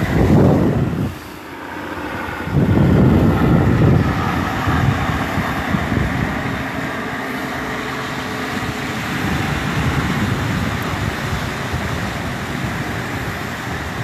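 Wind buffeting a phone microphone in two strong gusts, one at the start and one about three seconds in, over the steady wash of small surf breaking on a sandy beach.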